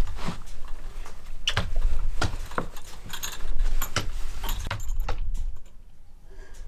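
Metal chain on a German Shepherd's collar jingling and clinking in short rattles as the dog is stroked and scratched around the neck, dying down near the end.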